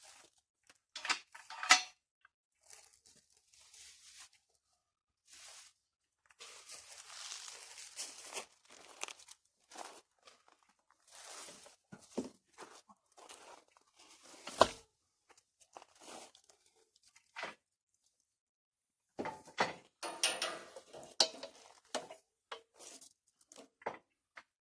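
Irregular handling noises of work around a jacked-up truck: rustling scrapes and shuffles broken by sharp metal clinks and knocks, a few of them louder than the rest.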